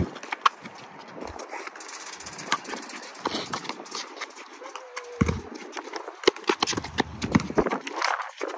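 A basketball dribbled on a concrete court, making a run of sharp, irregular bounces.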